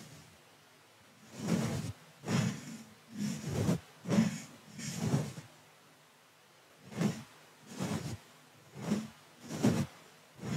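A small soft brush swept in short strokes right against a microphone, making about nine separate soft swishes with a pause in the middle.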